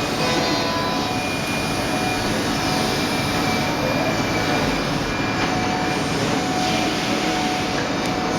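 Mikron HSM 600 U five-axis high-speed milling machine running: a steady mechanical noise with a thin, high, steady whine over it.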